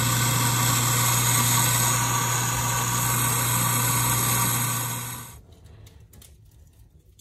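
Commercial in-store coffee grinder running, a steady motor hum with the hiss of whole beans being ground and poured into a can. About five seconds in it cuts off suddenly, leaving faint crackling of a wood fire in a fireplace.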